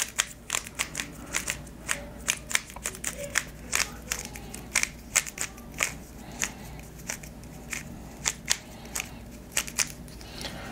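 Moyu YS3 M 3x3 speed cube, freshly set up and lubed, being turned fast by hand during a solve: a quick, irregular run of plastic clicks, several a second, that stops shortly before the end.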